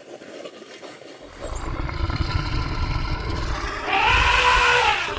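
An animal's drawn-out cry, one call rising then falling in pitch about four seconds in, over a low rumble that swells from about a second in.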